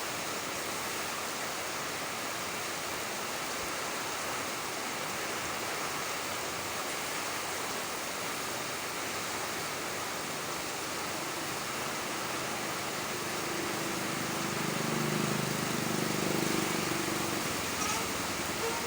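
Steady rain falling, an even hiss. From about eleven seconds in, a low rumble swells and fades over several seconds: a vehicle passing.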